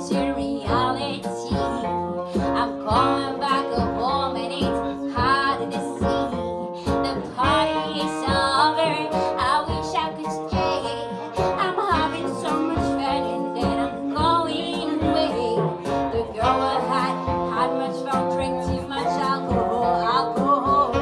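Live band music: a woman sings lead over guitar, piano, double bass and drums.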